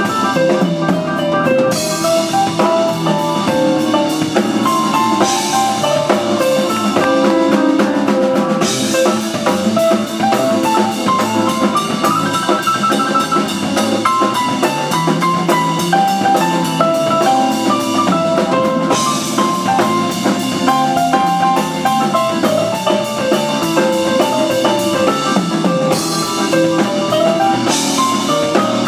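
Live blues-rock band playing an instrumental: drum kit, electric guitar, electric bass and Hammond B-3 organ, with a lead line stepping through melodic notes and cymbal crashes washing in and out.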